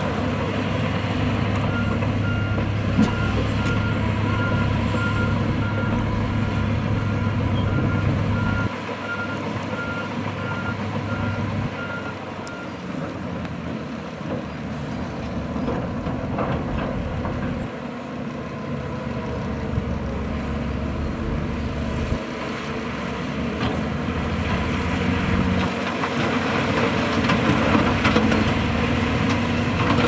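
Diesel engines of a bulldozer, wheel loader and dump trucks running at a fill site, with a reversing alarm beeping at an even pace through the first dozen seconds.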